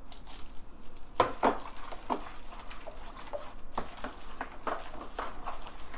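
Spoon stirring minced garlic into a thin soy-sauce marinade in a large plastic mixing bowl: irregular sloshing with sharp clicks of the spoon against the bowl, about two or three a second.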